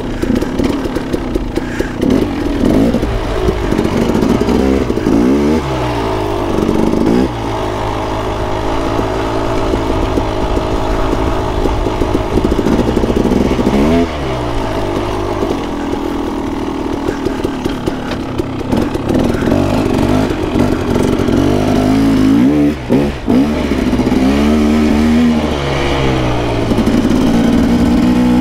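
2016 KTM 300 XC-W's single-cylinder two-stroke engine being ridden off-road. Its pitch rises and falls repeatedly as the throttle is opened and closed, with a brief drop in level late on.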